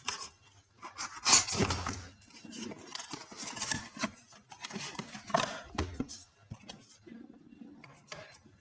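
Cardboard box being opened and handled: scraping and rustling of cardboard flaps, with irregular knocks as a hard plastic carry case is lifted out and set down on the tabletop.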